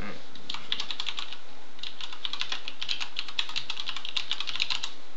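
Typing on a computer keyboard: a quick run of keystrokes, a short pause, then a longer run that stops near the end.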